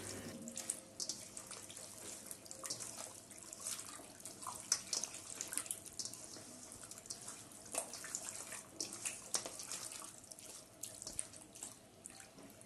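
Wet squelching and squishing of raw mutton pieces being mixed by hand with yogurt in a stainless steel bowl, a run of many small irregular squishes.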